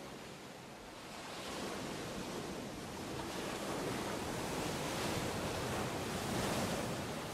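Ocean surf: a steady wash of waves that slowly grows louder, swelling gently now and then.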